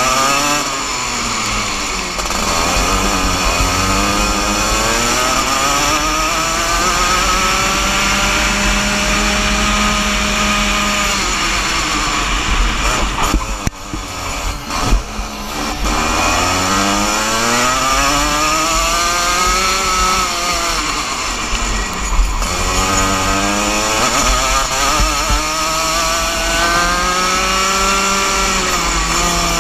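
Rotax Junior Max 125cc single-cylinder two-stroke kart engine under racing load. The revs climb steadily along the straights and drop sharply off-throttle into the corners, twice: near the middle and about three quarters of the way through.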